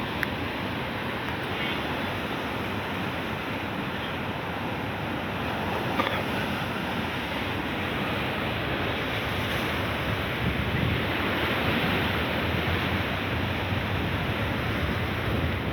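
Sea waves surging and breaking on the shore in a steady wash that swells louder past the middle, with wind rumbling on the microphone. There is a single sharp click about six seconds in.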